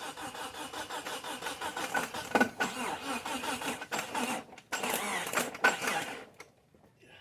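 Mitsubishi Eclipse GST's starter motor cranking, jumped with a screwdriver rather than the key and used to drag the car along in gear; it pauses briefly about four and a half seconds in, then cuts off suddenly about six seconds in.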